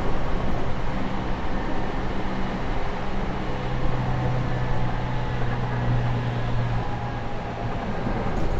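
Running noise inside a JR Kyushu 813 series electric multiple unit: a steady rumble of wheels on rail with a low hum from the traction equipment, which grows stronger for a few seconds in the middle.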